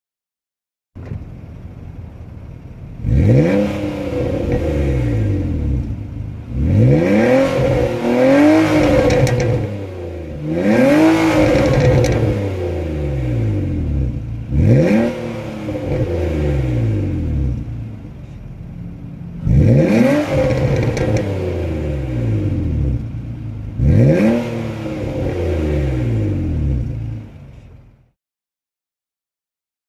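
Nissan car's straight-piped exhaust, joined with a band clamp, as the engine is revved about six times from idle, each rev rising sharply and falling back to a lumpy idle.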